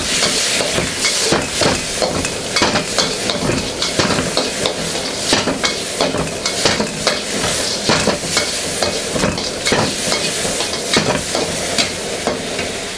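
Chicken and broccoli stir-frying in a wok over high heat: a steady sizzle, with a metal wok spatula repeatedly scraping and knocking against the wok as the food is flipped and stirred.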